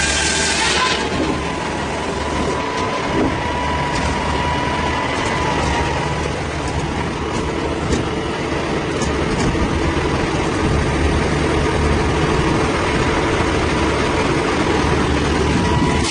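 A large engine running steadily at low speed. High-pitched noise falls away about a second in, leaving the engine's low running sound with a faint steady whine over it for the next few seconds.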